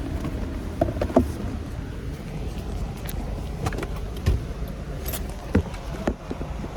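Scattered clicks and knocks of hands fitting a plastic clip and handling parts, over a steady low rumble.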